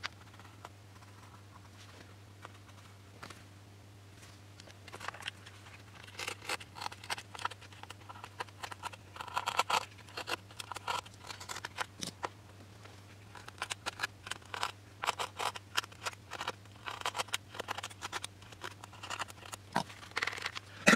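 A small hand tool scraping and cutting at the wooden servo opening in a model glider's fuselage, widening the hole for the elevator servo. Quick short strokes come in bursts from about five seconds in, with a brief pause around twelve seconds.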